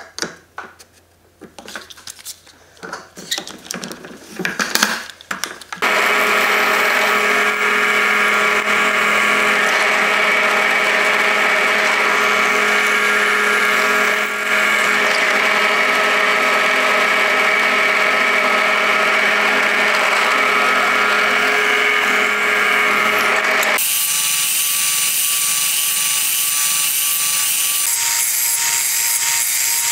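Light clicks and knocks of wood being handled, then a bench drill press running steadily for about eighteen seconds, its bit drilling into a clamped wooden blank, with a brief dip in level partway through. Near the end a different steady motor sound takes over.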